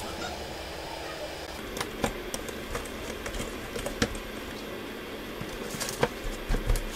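Scattered small, sharp clicks and taps of gloved fingers and a tool on the open iPhone's internals as the display flex connectors and their metal cover bracket are fitted, the clearest about two, four and six seconds in.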